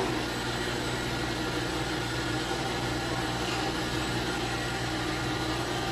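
Steady mechanical hum of running equipment: a constant low drone with a faint high whine, even throughout with no separate knocks or calls.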